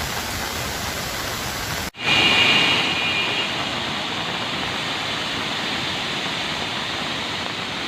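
Water pouring through the opened spillway gates of the Swarna Project dam, releasing floodwater: a steady rushing noise. About two seconds in it cuts out for an instant and returns louder, then settles to an even rush.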